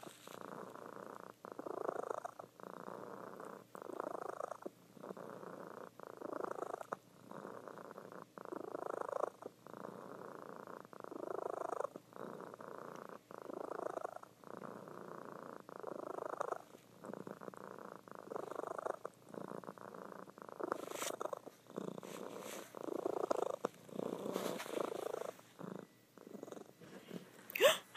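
Calico cat purring loudly in her sleep, the purr swelling and fading with each breath about every two and a half seconds. Near the end comes a brief, sharp knock.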